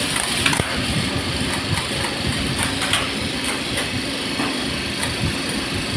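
Steady mechanical hum of elevator machinery running in a lift machine room, with scattered light clicks and knocks over it.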